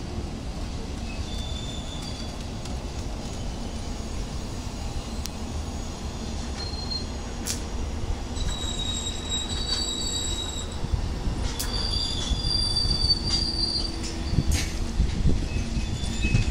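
Electric locomotive rolling past close by: a steady low rumble of wheels on rail that grows louder, with high-pitched wheel squeals from about halfway through and a few sharp clicks.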